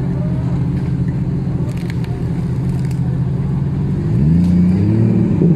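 An off-road 4x4's engine running steadily at low revs, then revving up about four seconds in, its pitch rising, dipping and rising again.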